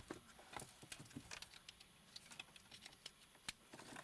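Faint, irregular small clicks and light rattling of wiring and plastic parts being handled, as the car stereo's wire harness and connectors are readied to plug in.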